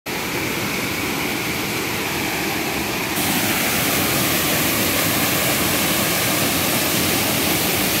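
Waterfall: whitewater pouring over rock, a steady rushing of falling water. About three seconds in, the sound shifts abruptly to a slightly louder, hissier rush.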